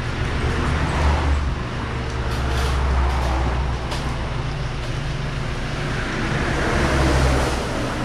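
Road vehicle noise: a steady low engine hum with tyre and road noise that swells and fades three times.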